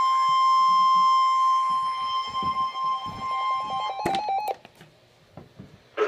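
Weather radio receivers sounding the NOAA Weather Radio 1050 Hz warning alarm tone for a flood warning: one loud steady tone for about four seconds. It cuts off with a click and a quick run of short beeps, then goes quiet.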